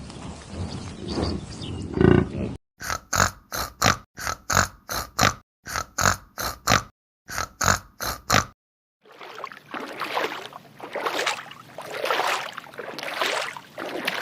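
Animal calls: a fast string of short, sharp calls, about three a second with a couple of brief pauses, then a rough, breathy noise that swells and fades several times.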